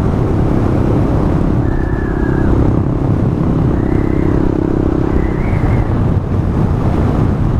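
Honda Grom's small single-cylinder engine running at a steady cruising speed, under heavy wind rush on a mic inside the rider's helmet.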